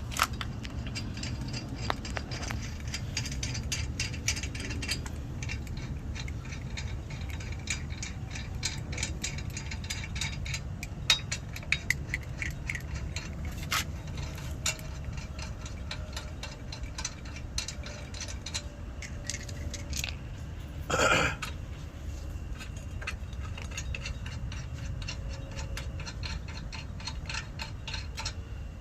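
Scattered metal clicks and clinks of tools and brake parts being handled during a front brake job, over a steady low background rumble, with one brief louder rush of noise about two-thirds of the way through.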